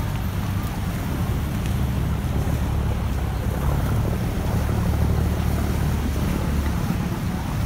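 Khlong Saen Saep canal passenger boat's engine running with a steady low rumble as the boat pulls away, with water churning in its wake.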